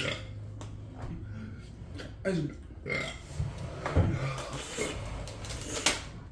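Short throaty grunts and sharp breaths from people enduring the burn of a very hot habanero and ghost-pepper sauce, a few separate sounds a second or so apart over a low steady hum.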